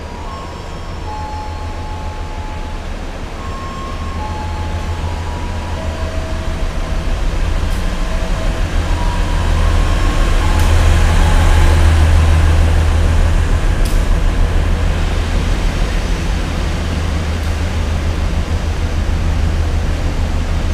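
Prameks diesel multiple unit pulling in along the platform: a deep engine and rail rumble that grows louder as the train comes alongside, is loudest about halfway through, then eases a little as it slows. A few faint steady high tones sound in the first half.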